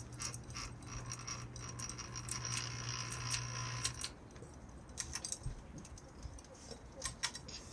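Wobbly ceiling fan rattling, with irregular metallic clicks and jingles over a steady hum that cuts off suddenly about four seconds in; the clicking carries on after the hum stops.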